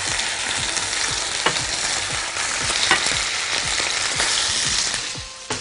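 Hot vegetable oil sizzling steadily in a frying pan as pieces of testicle are laid into it one by one, with a few small clicks. The sizzle dies down near the end.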